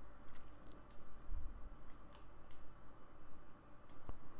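A computer mouse clicking a handful of separate times, irregularly spaced, over a low steady hum.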